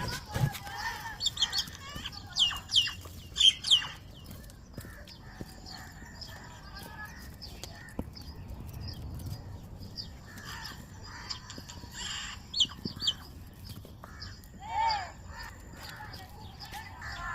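Birds calling: short, sharp chirps that come thickest in the first few seconds, and a few lower calls later on.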